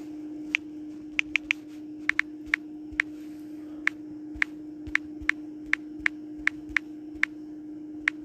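Phone on-screen keyboard key-press clicks as a phrase is typed: about twenty short, irregular taps over a steady hum.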